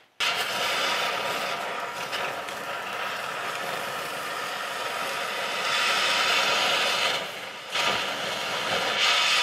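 Cutting torch hissing steadily as its flame burns through a seized nut on the rear leaf-spring mount, throwing sparks. The hiss dips briefly about seven seconds in and comes back louder.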